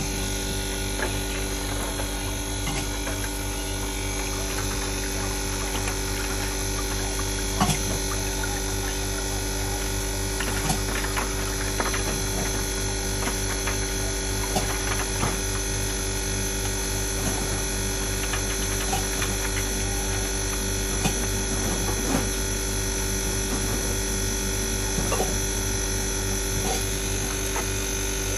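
Commercial ice machine running, a steady electrical hum from its refrigeration compressor and motors, with scattered light clicks.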